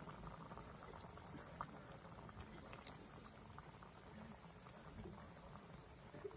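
A pot of bananas boiling in sweetened liquid: faint, steady bubbling with small scattered pops.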